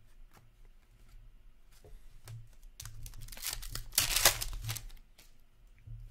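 A hockey card pack's wrapper being torn open: a crinkly tearing lasting about two seconds midway through, with light clicks of cards being handled before and after.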